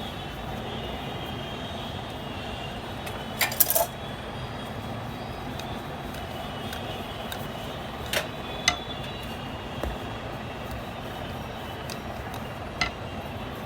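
Rolling pin rolling out dough on a board, with a few sharp knocks and clicks of the pin against the board, over a steady background hum.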